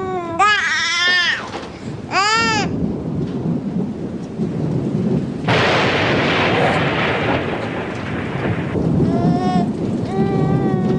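A baby crying in short wails, several near the start and again near the end, over a low rumbling thunderstorm with rain. About five and a half seconds in, a sudden loud rush of thunder and rain lasts about three seconds.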